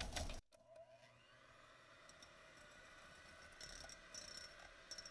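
Electric hand mixer whipping egg and sugar in a glass bowl: a faint, steady motor whir with a few light higher clicks near the end. A louder noise cuts off suddenly less than half a second in.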